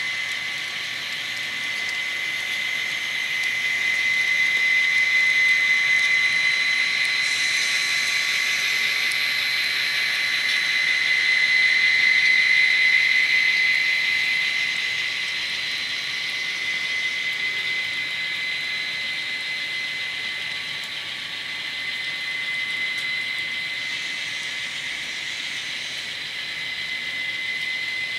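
Model trains running on the layout track: a steady whirring of wheels on the rails with a high, even whine, swelling twice as the cars roll past.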